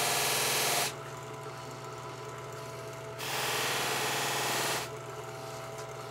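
Bench buffer motor running with a steady hum while a straight razor blade is pressed against its spinning spiral-sewn buffing wheel, making a loud hissing rush. The first pass ends just under a second in, and a second pass runs from about three to nearly five seconds in.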